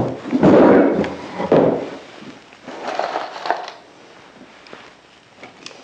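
Solid-wood chair parts knocking and scraping together as the backrest board is fitted against the chair's back leg by hand, loudest in the first two seconds, then a few quieter knocks and a sharp click near the end.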